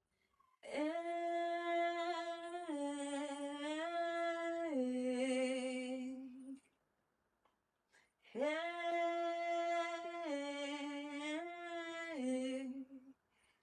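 A solo voice singing a slow, wordless, unaccompanied melody of long held notes that step downward. The same phrase is sung twice, with a silent pause of about two seconds between.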